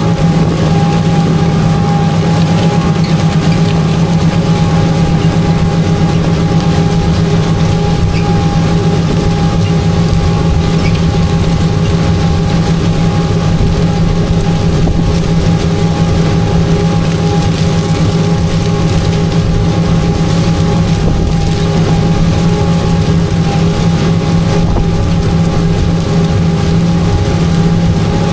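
Tractor engine running steadily while pulling an in-line ripper through the field, a constant drone with a thinner steady higher tone above it.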